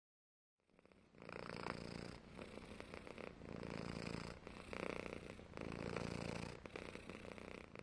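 Domestic cat purring, starting just under a second in, the purr swelling and easing with each breath in and out about once a second.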